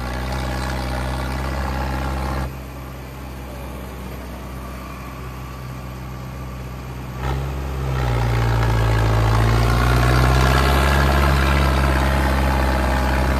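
Tractor diesel engine working hard as the tractor climbs a dirt mound in reverse in two-wheel drive. It runs steadily, eases off about two and a half seconds in, then revs up again near the middle and pulls loudest under load for the rest.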